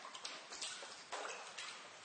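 Water drops falling in a basement, about three drips a second at uneven intervals, each a sharp plip that dies away with a short echo.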